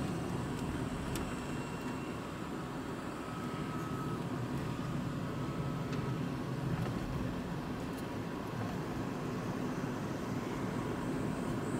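Electric car driving at steady speed on an asphalt road, heard from inside the cabin: a steady low rumble of tyre and road noise with no engine sound, and a few faint ticks.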